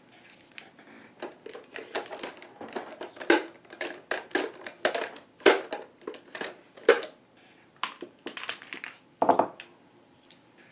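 Plastic art markers clicking and clattering against each other and a plastic cubicle organizer as they are handled and slotted in: a run of irregular sharp clicks that stops shortly before the end.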